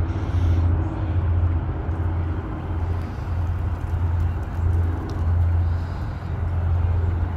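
Low, steady drone of a river tugboat's diesel engines pushing barges upstream, swelling and easing a little every second or so under a general rumble.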